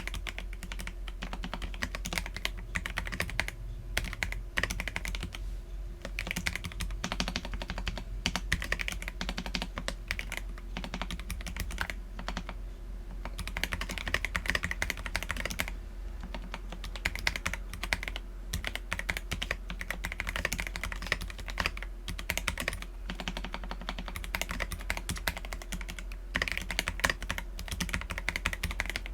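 Steady typing on an Akko PC75B mechanical keyboard with lubed Akko Jelly Black linear switches and PBT Cherry-profile keycaps: a fast, dense run of key clacks with brief pauses between bursts.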